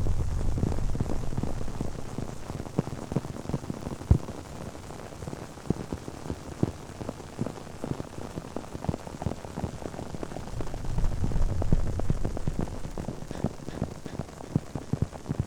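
Close-miked ASMR trigger sound: a dense, irregular crackle of small pops and ticks, like rain pattering, over a low rumble that eases off partway through and swells again near the end.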